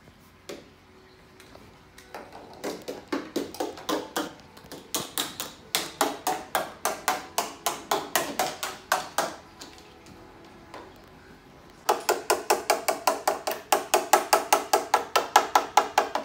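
Rapid, even tapping with a ringing pitch, about four strokes a second, in two runs with a short pause between.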